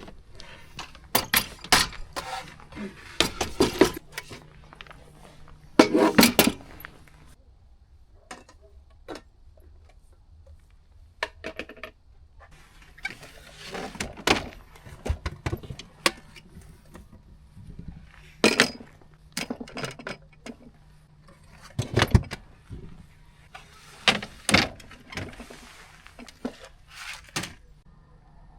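Cooking gear being handled for camp cooking: irregular clinks, clanks and knocks of pots, utensils and containers, some in quick clusters, over a faint steady low hum.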